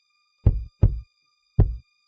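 Deep kick-drum hits in a slow, sparse repeating beat: two hits close together about half a second in, then a single hit near the end, over a faint steady high hum.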